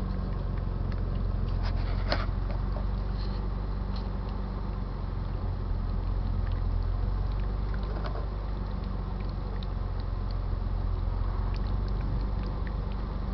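Steady low hum of an idling car engine, the car backing up the power to a homemade HHO electrolysis cell, with a few faint scattered ticks.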